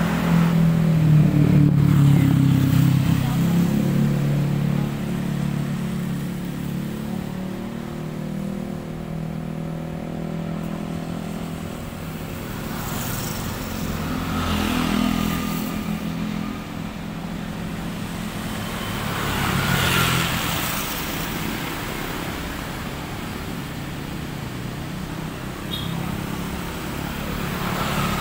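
Car engine idling with a steady low hum. Two louder swells of noise come about halfway through and again about two-thirds through.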